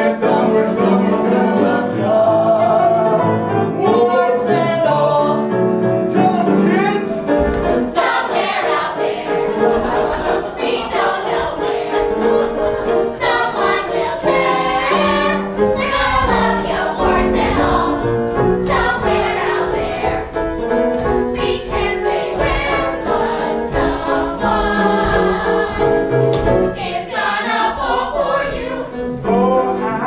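Musical theatre ensemble singing a production number with band accompaniment. A steady, rhythmic beat comes in about eight seconds in.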